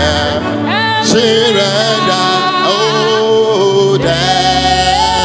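Gospel singing: a male and a female vocalist sing into microphones over instrumental backing with a steady bass line, holding long notes and gliding between them.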